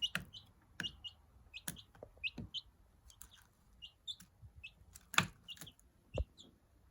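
Young Australorp, Light Brahma and Silkie bantam mix chick peeping, short high peeps several times a second, among sharp clicks and taps; the loudest taps come about five and six seconds in.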